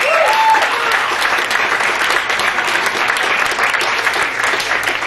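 Audience applauding: many hands clapping in a dense, steady patter, with a brief voice heard right at the start.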